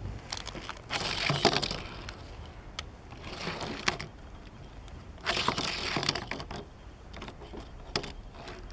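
A Hot Wheels die-cast toy car, a '69 Dodge Coronet Super Bee, pushed and rolled across a surface three times, its small wheels making a brief rolling sound each time, about two seconds apart.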